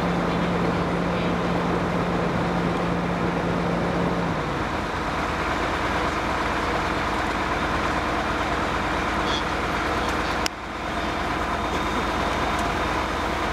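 Steady drone of an idling vehicle engine, with a low hum that drops away about four and a half seconds in. A single sharp click about ten and a half seconds in.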